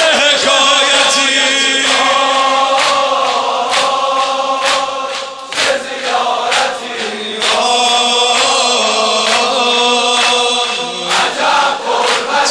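Shia mourning chant (noha) held on long sustained notes over a steady beat of about one stroke a second, between sung verses.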